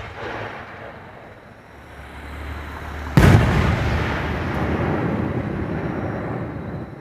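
Firework shells bursting close by: the fading tail of one burst at the start, then a loud boom about three seconds in, followed by a long noisy tail that slowly dies away.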